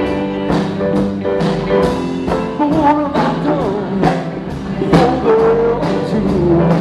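A live rock band playing, recorded through a small camcorder's built-in microphone. The drums keep a steady beat of about two hits a second under a sliding melodic line.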